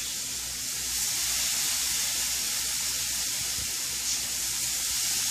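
Raw bacon strips sizzling on a hot electric griddle set to 300 as they are laid down: a steady hiss that grows a little louder about a second in.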